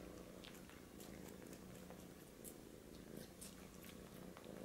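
Faint, steady purring of a domestic cat.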